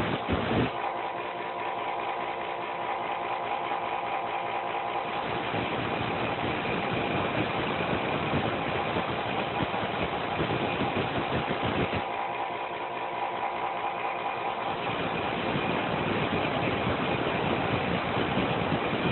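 Small high-speed power tool motor running with a steady whine while grinding steel blanks into lock-pick rakes. The grinding gets rougher in two stretches: one in the middle and one toward the end.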